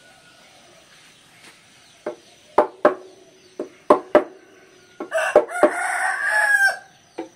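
A wooden mallet driving a chisel into a wooden log for a kulkul slit drum: a string of sharp, irregular knocks begins about two seconds in. These are the first cuts of the carving. Near the end a rooster crows once, loudly, for about a second and a half over the blows.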